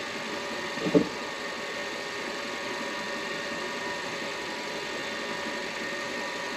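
Midi wood lathe motor running steadily with an even hum. A short, loud vocal sound about a second in.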